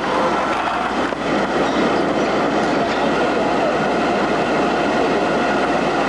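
R4 PC table tennis robot running: a steady mechanical rush from its motors and feed, with ping-pong balls clicking and rattling through it.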